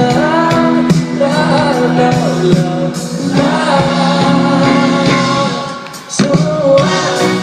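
Live pop band playing with a sung vocal line, loud and continuous, with a brief lull about six seconds in.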